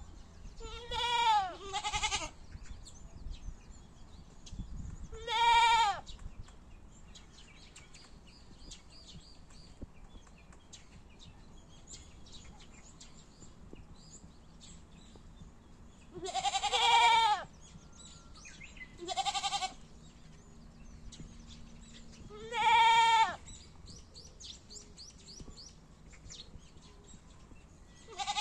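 Goats bleating, loud calls that each rise then fall in pitch: two in quick succession about a second in, another near six seconds, then after a long quieter stretch three more a few seconds apart, and a last one starting at the very end.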